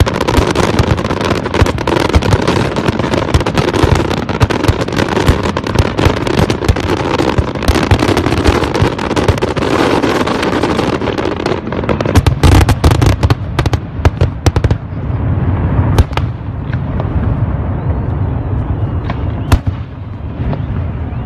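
Fireworks display: a dense crackle of many bursts at once, then, after about eleven seconds, sparser with heavy low booms and scattered single sharp bangs.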